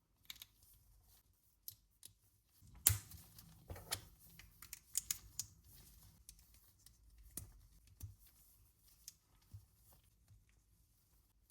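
Small plastic LEGO pieces clicking and rattling as they are handled during a build: scattered light clicks, with a busier run of louder clicks and rustling about three seconds in.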